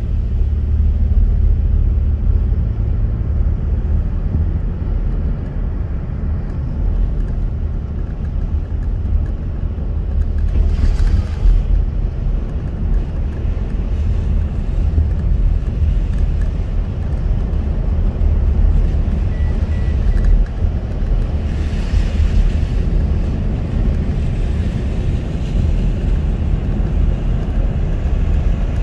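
Steady low road and tyre rumble heard inside a car's cabin while driving on a wet road, with a brief brighter hiss swelling up twice, like tyres passing on wet asphalt.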